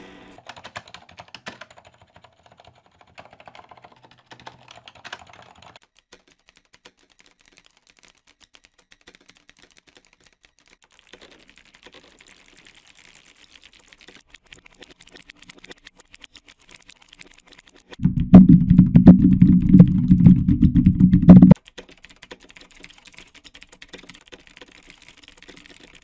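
Computer keyboard typing sound effect, clicking keys run through a chain of audio effects: reverb at first, then chorus. About three-quarters of the way through, a much louder, low-pitched version lasts about three and a half seconds and cuts off suddenly.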